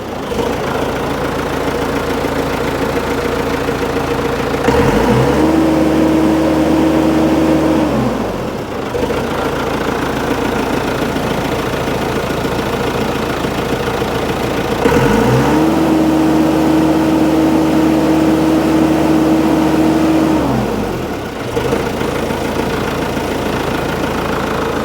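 Case 1845 skid steer's diesel engine idling, then revved up to full throttle twice, a few seconds at a time, with the pitch climbing, holding high and dropping back to idle each time. The engine now answers the throttle again after crud was cleared from a small glass-ball check valve in its fuel system, curing its loss of power.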